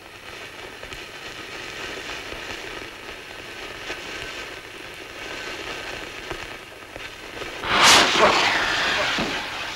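Homemade firework fizzing with a steady hiss after being lit, then a sudden loud burst about eight seconds in that dies away over a second or so.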